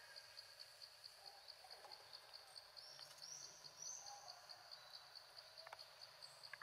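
Faint forest ambience: an insect chirping steadily at a high pitch, about four chirps a second, with a couple of short bird whistles about three seconds in.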